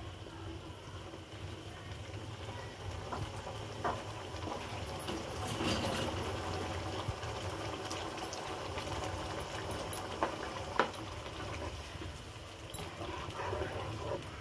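Chicken in tomato masala bubbling and sizzling in a non-stick karahi over a gas flame, with a few light clicks of a plastic spatula against the pan. The tomatoes have just gone in and are being fried down with the chicken.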